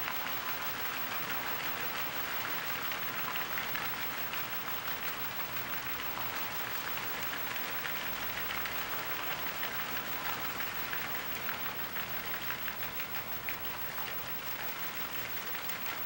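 A flock of waterbirds taking off and flying low over the water: many wingbeats and feet splashing on the surface make a steady, dense spatter like rain.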